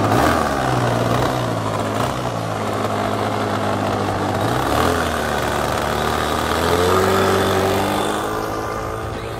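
OS Max .55AX two-stroke glow engine of an RC Focke-Wulf 190 model running at low throttle. Its pitch dips briefly about halfway, then rises a little, and it grows fainter near the end as the model taxis away.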